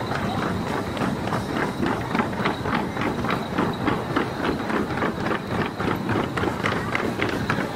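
A crowd of people trotting along a street, their footsteps falling in a steady quick rhythm of about four to five a second over a general crowd hubbub.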